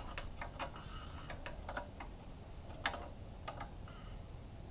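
Light, irregular metal clicks and taps of hot, freshly forged flat-jaw tongs being shifted and lined up in a vise, with one sharper click about three seconds in.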